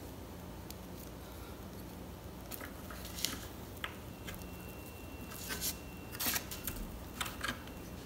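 Scattered light clicks and scrapes of a DDR3 laptop RAM stick (SO-DIMM) being handled, slid into its memory slot on a circuit board and pressed down to seat it, over quiet room tone. The clicks come more often in the second half.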